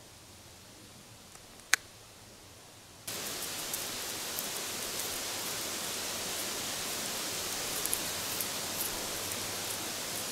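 Low background with a single sharp click, then about three seconds in a steady hiss cuts in abruptly, with faint crackles over it.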